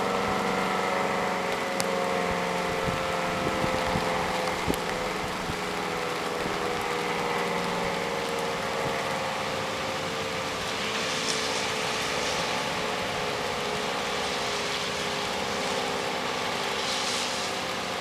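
Federal Signal SD-10 electromechanical outdoor warning siren winding down after its test signal, several tones sliding slowly and steadily lower in pitch.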